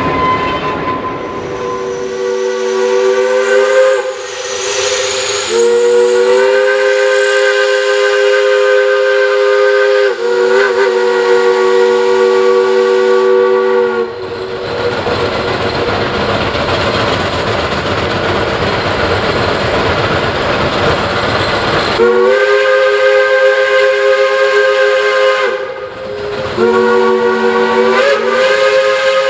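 Steam whistle of Shay geared steam locomotive No. 11, sounding a chord of several tones in a series of long blasts, each a few seconds. In a longer gap between blasts, the working locomotive's steam hiss and exhaust run steadily.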